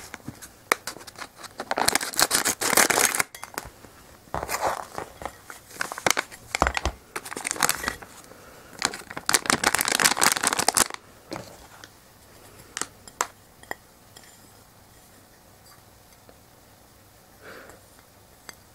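Plastic candy wrapper of a gummy bag crinkling and tearing as it is pulled open and shaken out, in irregular bursts for about the first eleven seconds. After that only a few faint taps.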